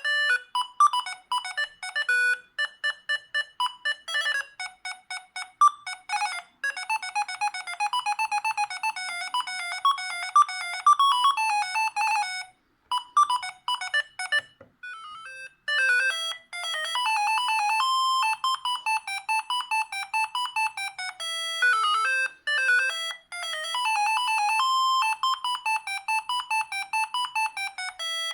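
Siemens S45 mobile phone playing its built-in ringtones: quick electronic melodies of beeping notes in a high register, breaking off briefly about 13 to 15 seconds in before another tune starts.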